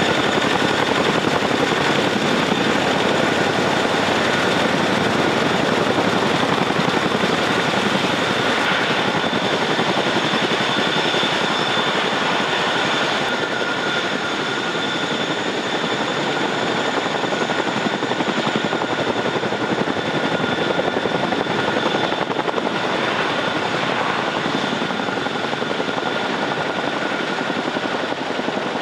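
MH-47G Chinook helicopter's twin turboshaft engines and tandem rotors running on the ground: a steady, loud rotor and engine rush with a constant high turbine whine over it.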